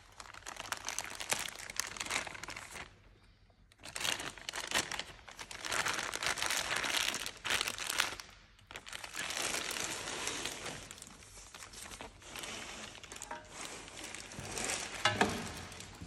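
Clear plastic bag crinkling as hands unwrap a coiled leather belt, in several bursts with short pauses. A sharp click comes near the end.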